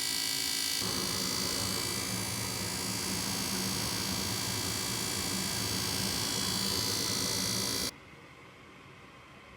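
Failing draft inducer fan of a Goodman gas furnace running with a steady, high-pitched screeching; the screech is the sign of the defective fan. It cuts off suddenly near the end, leaving a faint steady hiss.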